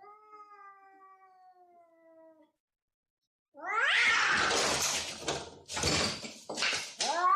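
A cat calling: first one faint, drawn-out meow that falls slowly in pitch, then, after a short pause, a much louder, rough, hissing cat cry broken by two brief gaps.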